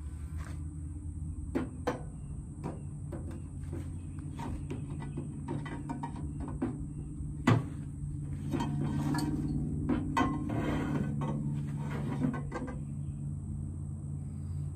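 Scattered clicks and knocks of parts and hand tools being handled during work on a car's shift linkage, over a steady low hum; the sharpest knock comes about halfway through.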